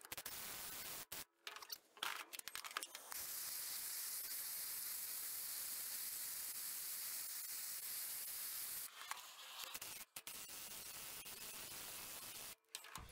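Gas blowtorch hissing steadily as its flame heats corroded bolts to free them, broken off by a few brief gaps.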